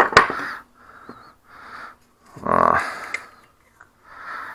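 A person breathing steadily through the nose close to the microphone, about five breaths, one louder and longer about two and a half seconds in, with a sharp click of small parts right at the start.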